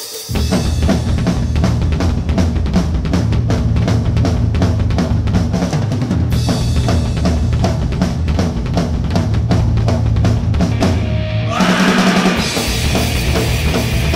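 A live rock band starts a song: drum kit pounding a fast, steady beat under bass and electric guitars. About eleven seconds in the beat breaks off briefly, then the band comes back in.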